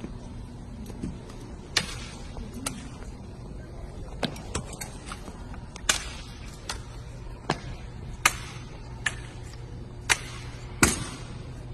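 Sharp slaps and knocks of a drill rifle being caught and handled in an armed exhibition drill routine: about a dozen irregular cracks, the loudest near the end.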